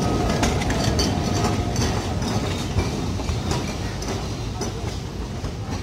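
Two-car electric tram rolling over its rails, a low rumble with irregular clacks and knocks from the wheels on the track. It fades steadily as the tram moves away.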